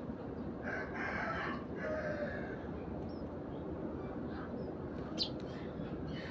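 A rooster crows once, a call of about two seconds starting just under a second in. Near the end a single sharp high chirp comes from one of the Eurasian tree sparrows feeding, over a steady low background hum.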